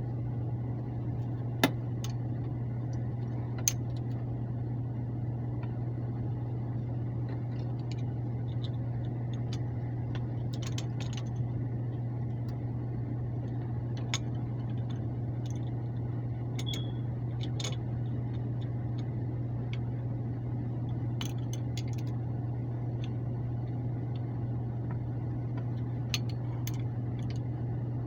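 Air handler blower running with a steady low hum, while tools or metal fittings click and clink now and then, about a dozen short sharp ticks spread through.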